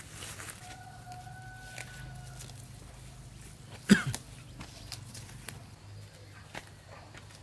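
A rooster crowing, one long held call lasting about two seconds, over scattered clicks and rustles of weeds being pulled up by hand. About four seconds in comes a short, sharp sound that drops in pitch, the loudest thing here.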